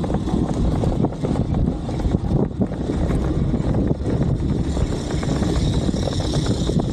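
Steady low engine rumble with wind buffeting the microphone.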